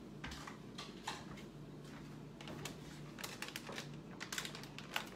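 A plastic bag of steamed cauliflower rice being handled and emptied into a bowl: light crinkling with scattered small ticks, coming thicker a little past halfway.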